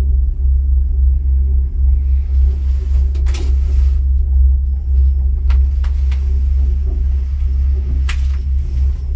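Steady low rumble inside a moving gondola cabin, with a few sharp clicks and knocks from the cabin about a third of the way in, midway and near the end.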